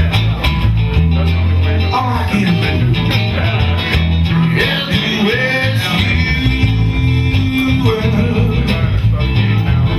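Live blues band playing: a guitar lead line with bent, sliding notes over steady bass and drums.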